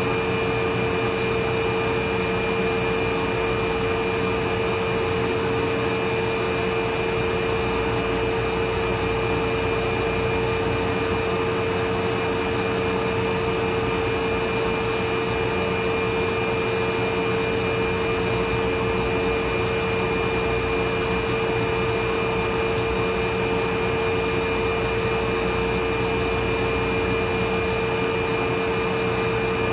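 Underfloor motor-generator (MG) of a Sotetsu 9000 series electric train, a unit reused from retired 6000 series cars, running steadily: a constant whine over a low hum that does not change.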